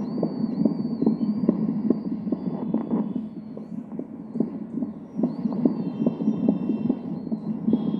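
Fetal heartbeat through a handheld fetal Doppler: a rapid, even whooshing pulse, a little under three beats a second, over a steady hiss.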